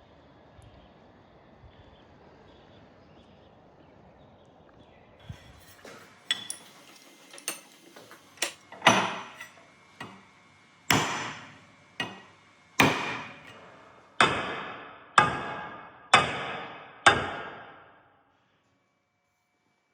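A large forged knife chopping with a series of sharp blows, about a dozen. They start light about six seconds in and grow heavy and regular, roughly one a second, each with a short fading ring. The sound cuts off abruptly near the end.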